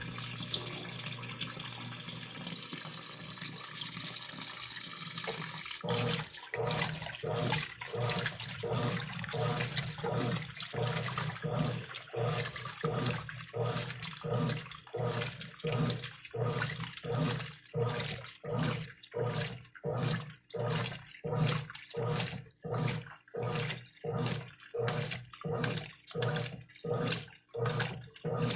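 Brastemp Clean 5 kg top-loading washing machine with water running in as it fills. About six seconds in the water stops and the agitator starts, its motor humming in regular back-and-forth strokes, a little over one a second.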